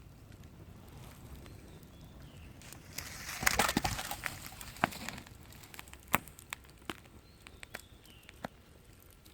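Wood campfire crackling, with scattered sharp pops. About three seconds in it flares into a dense, louder rush of crackling and hiss for a second or two, then settles back to single loud pops.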